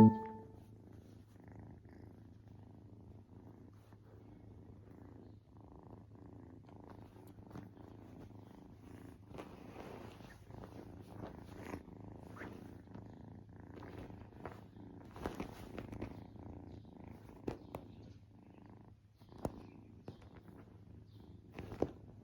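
Kitten purring steadily, with scattered short clicks and rustles, the loudest near the end.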